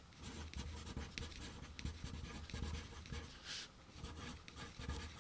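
Pencil writing on paper: faint, irregular scratching strokes as letters are written out.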